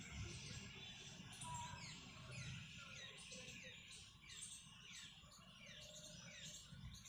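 Faint birdsong: a run of quick notes falling in pitch, about two a second, over a low rumble.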